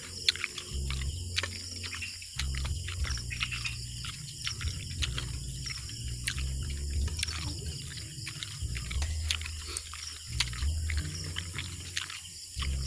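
Metal spoons and snail shells clicking and clinking against a steel bowl and plates, many small sharp clicks. Underneath runs an on-and-off low rumble in stretches of a second or two, with a steady high hiss.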